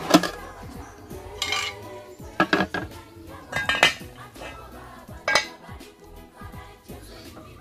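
Metal cooking pots and bowls knocking together: about five sharp clinks and clatters, each with a brief ring, spread over several seconds.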